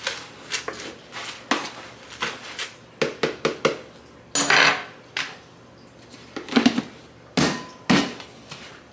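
Kitchen clatter: a series of irregular knocks, clinks and thuds as containers and utensils are handled and set down, with a short burst of rushing noise about four and a half seconds in.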